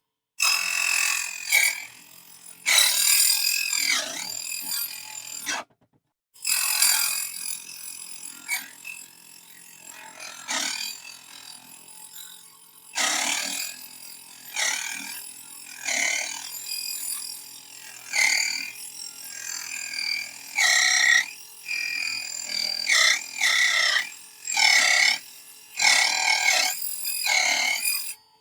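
Mini table saw blade cutting a small aluminium U-channel in repeated screeching bursts as the metal is fed in, stopping briefly about six seconds in. The blade catches and skips in the cut rather than running through it smoothly.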